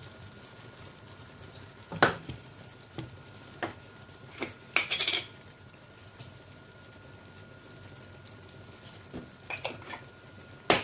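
Cookware handled on a stovetop: scattered knocks of a wooden spoon against a metal pot and its glass lid, with a short rattling clatter about five seconds in and a louder knock at the end, over a faint steady hiss.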